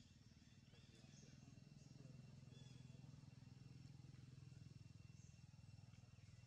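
Near silence: faint outdoor ambience with a low hum that swells about a second in and eases near the end, and faint high bird chirps.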